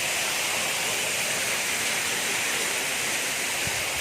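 Waterfall's rushing water: a steady, even rush of falling water.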